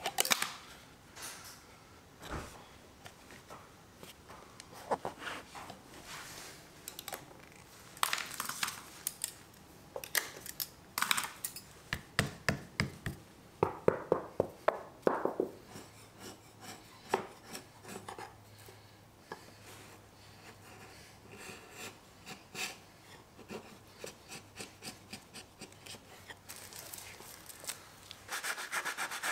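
Hand-trimming the joint of a painted wooden skirting board: sharp clicks and knocks, then a quick run of scraping strokes as shavings are pared off. A steadier rubbing, like sanding, starts near the end.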